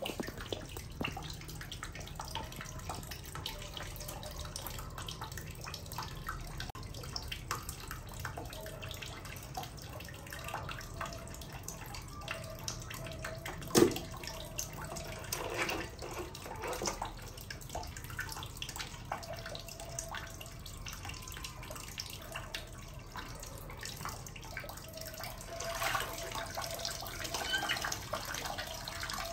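Water splashing and trickling in a small bath or tub, with many small irregular splashes and drips and one sharp knock about fourteen seconds in.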